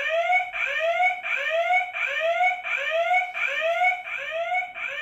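Electronic alarm sound effect from a toy AT-AT walker's built-in sound unit: a rising electronic whoop repeated about one and a half times a second.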